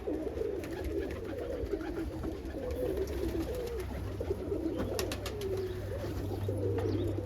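Many domestic pigeons cooing together in a loft, their low calls overlapping without a break, with a few sharp clicks about five seconds in.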